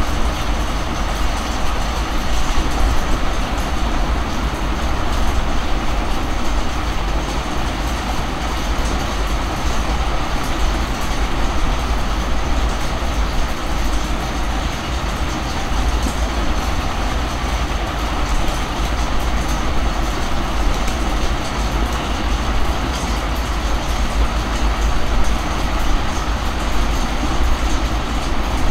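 Steady, fairly loud mechanical rumble with a hiss over it, heaviest in the deep bass, running on without a break.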